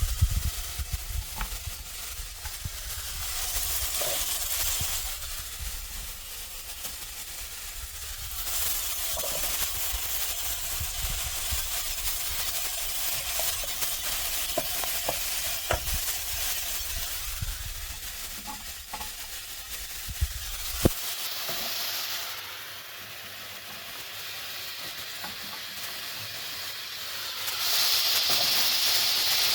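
Onion, mushrooms and carrots frying in olive oil in a pot, sizzling steadily while being stirred, with scattered clicks of the utensil against the pot. A low rumble stops about two-thirds of the way through, and the sizzle grows louder near the end.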